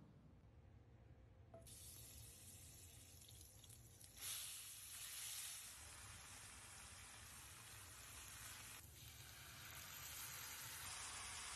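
Faint sizzling of diced chicken frying in a pan. It starts about two seconds in and grows louder about four seconds in.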